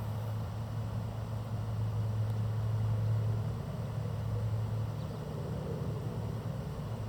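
A steady low hum, swelling slightly about two to three seconds in, over an even background hiss.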